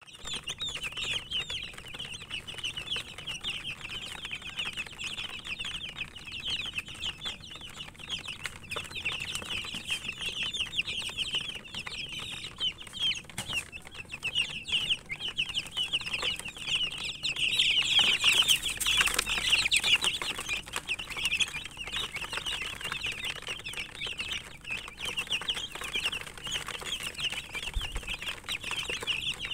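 A crowd of baby chicks peeping constantly, many high cheeps overlapping into one dense chorus, which swells louder for a few seconds just past the middle.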